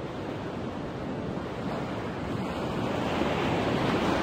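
Ocean surf washing ashore, a steady rush of waves that slowly grows louder.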